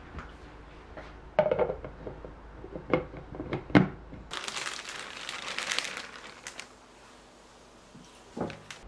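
Kitchen handling sounds: several knocks and clacks as a pot and its clear plastic lid are handled, then about two seconds of rustling, crinkling noise, and another knock near the end.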